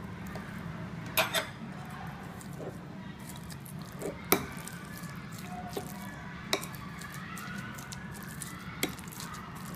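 Metal spoon mixing minced meat and chopped scallions in a glass bowl: soft squishing with a few sharp clinks of the spoon against the glass, the loudest a little after four seconds in.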